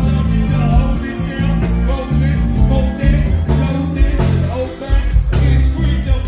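Live go-go band playing: a heavy bass guitar line over a steady drum beat, with a vocalist singing.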